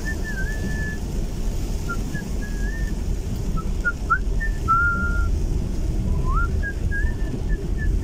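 A person whistling a tune: short notes and sliding glides that waver up and down, with brief pauses. Underneath runs the low rumble of the car and road, heard from inside the cabin.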